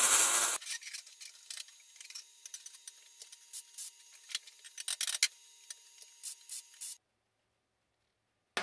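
A welding arc crackles for about half a second. Then a hand tool scrapes and taps along the freshly welded seam of a sheet-steel tray, with scattered sharp clicks, until it stops about 7 seconds in.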